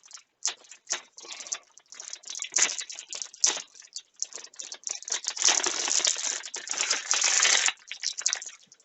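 Packaging crinkling and rustling, with irregular light clicks and rattles, as a motherboard's I/O shield is pulled out of its box. The rustling thickens into a longer stretch past the middle.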